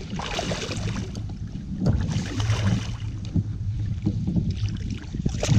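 A hooked snapper thrashing and splashing at the surface beside a plastic sit-on-top kayak, with water sloshing, irregular knocks and wind on the microphone. A sharp splash or knock comes near the end.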